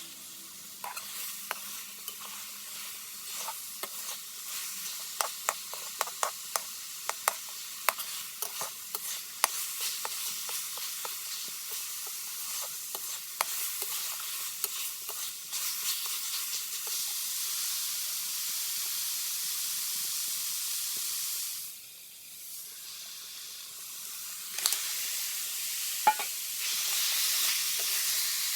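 Food sizzling as it fries in a pan, with a spoon clicking and scraping against the pan as it is stirred. The stirring clicks come thick and fast in the first half. After that the sizzle runs steadier, dips briefly about three-quarters of the way through, then comes back louder.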